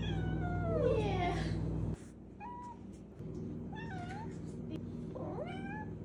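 Maine Coon kitten meowing: a long meow that falls in pitch, followed by three short chirping calls. A steady low hum runs underneath and drops away about two seconds in.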